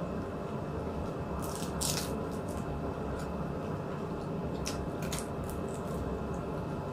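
Eating sounds: a few short, crisp crackles and clicks from food being chewed or handled, the strongest about two seconds in, over a steady low room hum.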